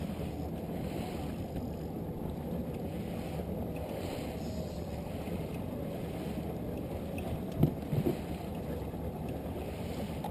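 Small outboard motor running steadily at trolling speed, with wind and water noise over it. Two dull knocks, the loudest sounds, come about three-quarters of the way through.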